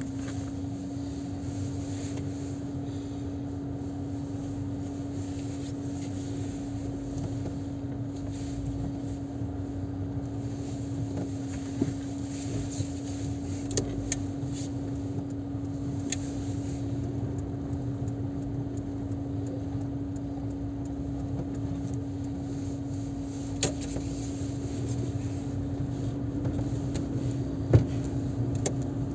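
Car cabin while driving: a steady, unchanging hum over low rumble, with a few light clicks and one sharper knock near the end.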